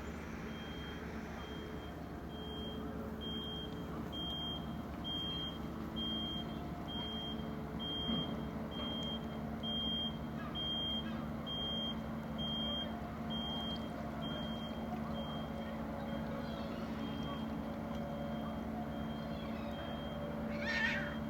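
A vehicle's reversing alarm beeping about once a second over a steady engine hum, fading out in the second half. A short, brighter call sounds near the end.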